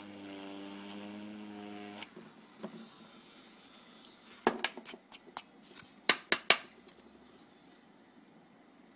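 Small 12-volt DC motor with a grinding bit running with a steady buzzing hum as it engraves into a black plastic strip, stopping about two seconds in. Then a run of sharp clacks and taps, the loudest a quick group of three about six seconds in.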